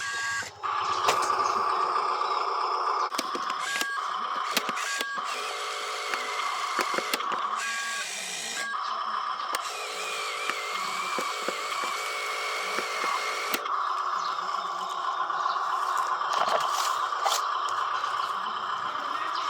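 Small electric motors of remote-control toy construction vehicles whining steadily, with short electronic beeps a few times and a wavering higher whine partway through.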